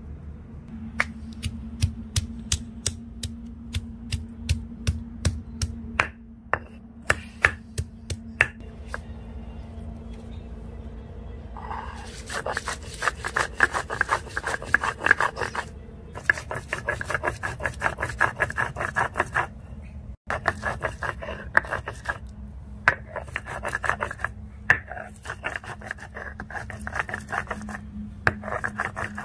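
Stone roller on a flat grinding stone (sil-batta). First a series of sharp stone-on-stone knocks as the roller is struck down to crush hard dried fish, garlic and chillies. From about twelve seconds in come quick back-and-forth rasping grinding strokes in runs with short pauses.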